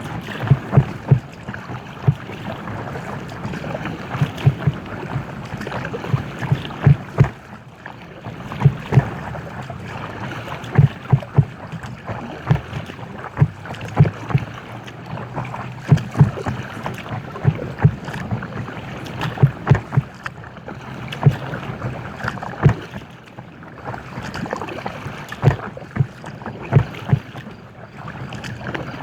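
Paddling an inflatable kayak: paddle strokes in the water, broken by many short knocks coming in irregular clusters, over wind on the microphone.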